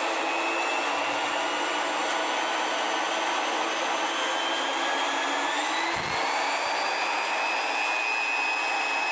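Flexible shaft grinder's electric motor running, its whine rising in pitch just past halfway as it speeds up and then holding steady, over the steady noise of a power generator. One short click about six seconds in.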